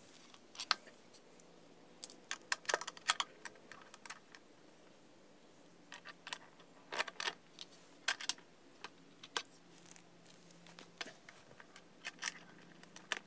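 Scattered light clicks and clacks of a bicycle saddle's rails and a seatpost clamp head being handled and fitted together, coming in small clusters a few seconds apart.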